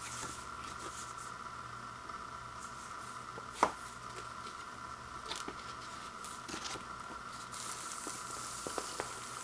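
Vinyl LP and its paper inner sleeve and card jacket being handled: light rustling and small clicks, with one sharp tap about three and a half seconds in. Near the end a longer hissing rustle as the record slides against its paper inner sleeve. A steady faint hum runs underneath.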